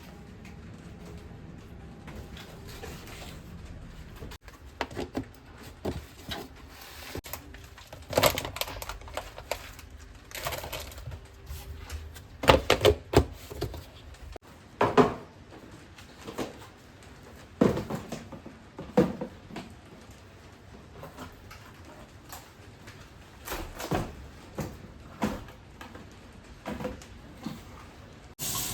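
Irregular knocks and clicks of objects being handled and set down in a small room, some in quick clusters, over a low steady background.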